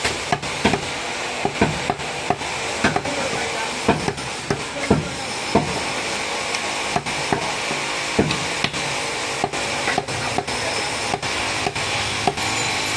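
A butcher's cleaver chopping goat meat on a wooden block: sharp, irregular chops, roughly two a second, over a steady hiss.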